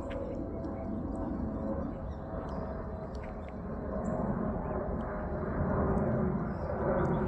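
A low outdoor rumble that grows steadily louder, with scattered light clicks like footsteps on a dirt trail.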